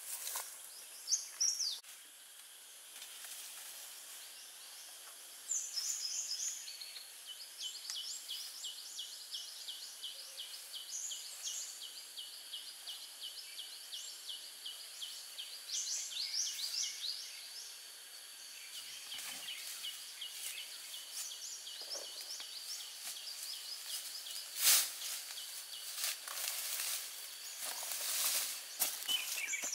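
Outdoor ambience of birds chirping and singing fast runs of repeated notes over a steady high hiss. A sharp knock comes near the end, with a few smaller clicks after it.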